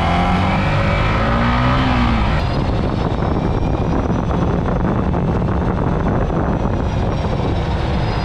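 Motorcycle being ridden along a road: a steady engine note under wind rushing over the camera microphone. The engine note rises briefly about two seconds in, after which the wind noise dominates.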